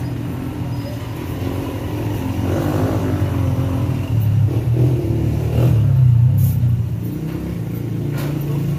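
A motor vehicle engine running steadily, growing louder around the middle and easing off again, with a few sharp knocks near the end.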